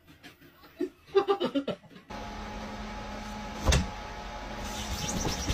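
A small electric motor hums steadily from about two seconds in, with one thump near the middle and high chirps near the end. Before it come faint clicks and a few short, louder sounds.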